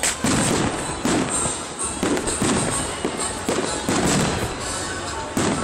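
Fireworks shells bursting in quick succession, about ten loud bangs roughly half a second apart, each followed by a short rumble.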